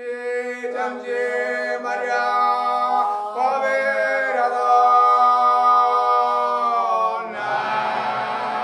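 Sicilian Holy Week lament sung by unaccompanied men's voices. A lead voice sings a slow, drawn-out line over a steadily held note. Just past seven seconds the fuller men's chorus comes in, with a low bass voice underneath.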